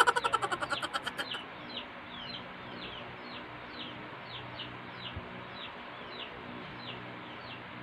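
Baby chicks peeping, a steady run of short, high, falling peeps about twice a second. A loud rapid pulsing burst is heard in the first second and a half.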